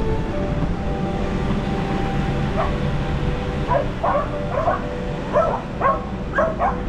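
Dog barking in a quick series of short, sharp barks and yips, about eight of them, starting a couple of seconds in.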